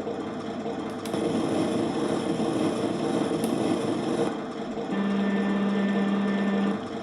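RC model tank's small electric drive motors and gearboxes whirring, with the plastic tracks grinding and two sharp clicks in the first few seconds. About five seconds in, a steady, even hum starts and drops out shortly before the end.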